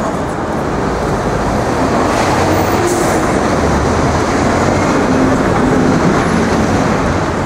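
Loud, steady street traffic with the deep rumble of heavy vehicles.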